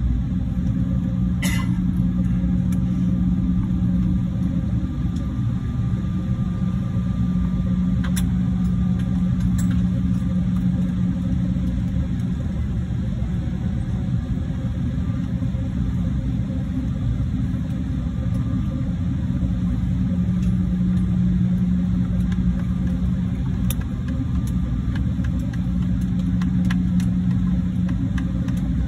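Jet airliner's engines at taxi idle, heard from inside the passenger cabin as a steady low rumble with a constant hum. A couple of faint clicks sound over it.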